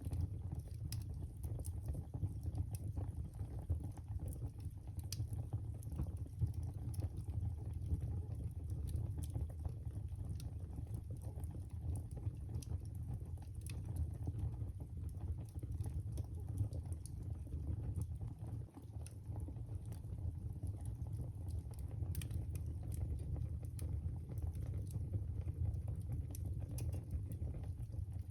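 Fire burning in a fireplace: a steady low rumble of flames with frequent irregular crackles and pops.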